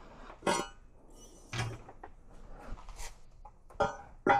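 A handful of short metallic clanks and knocks, about five spread through a few seconds, as a stainless tubular exhaust manifold and its parts are picked up and handled.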